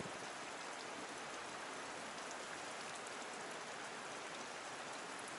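Steady hiss of running water with no rhythm or pauses, from water flowing into and through the reservoir arm.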